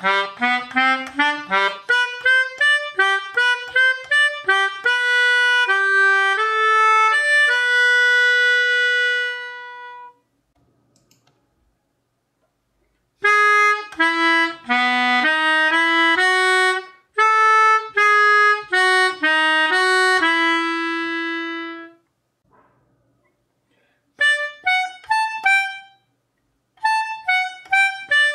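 Hohner Melodica Student 32, a keyboard free-reed wind instrument, playing three short jingle melodies separated by pauses of two or three seconds. The first is a run of quick notes ending on long held notes. The second is a phrase ending on a held note. The third is short, detached notes in small groups.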